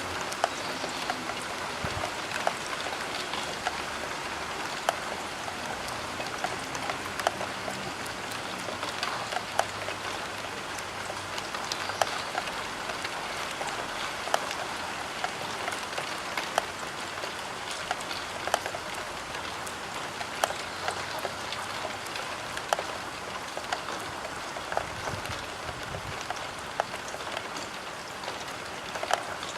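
Steady rain pattering on a roof window, with frequent sharp separate drop impacts ticking on the glass over an even hiss.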